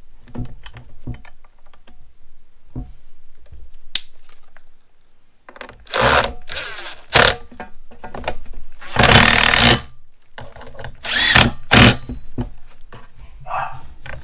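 Cordless power driver spinning in several short bursts, the longest about a second, as it runs T30 Torx bolts into the metal brackets, with small clicks of handling the parts in between.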